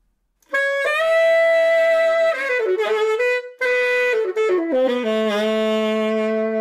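Saxophone playing a short melodic phrase of sustained notes, starting about half a second in, with a brief pause near the middle and a long held note at the end.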